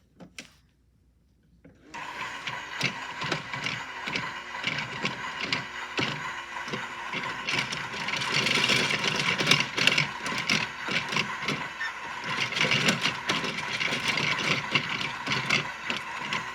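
Toy washing machine running after a short pause: its small motor gives a steady whine under irregular rattling and knocking as the shirt ball tumbles in the drum, then cuts off suddenly at the end.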